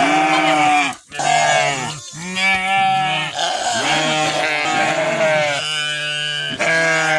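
A flock of sheep and lambs bleating, many long calls overlapping one after another: lambs and ewes calling to find each other.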